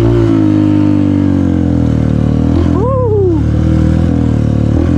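Motorcycle engine running steadily as the bike rides along a dirt trail, its pitch easing down slightly in the first second.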